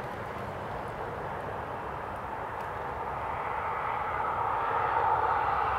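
A vehicle approaching: a steady rushing noise that grows louder over the second half.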